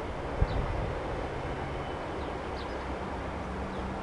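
Steady road noise of a lorry driving past at a distance: a low rumble with a hiss. A short thump about half a second in, and a few faint bird chirps.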